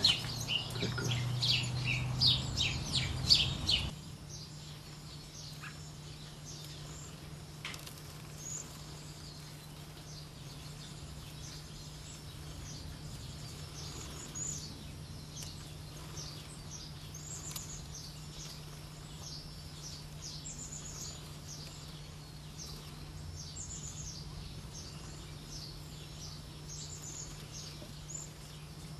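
Cedar waxwings giving thin, very high-pitched calls, one every second or so, over a steady low hum. For the first four seconds, louder and rapid bird chirping is on top, then it cuts off abruptly.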